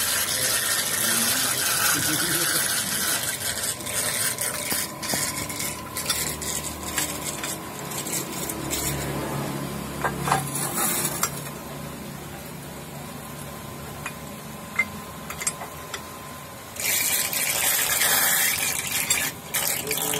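Water hissing and rushing, with a few scattered knocks. It eases off after about ten seconds and swells up louder again near the end.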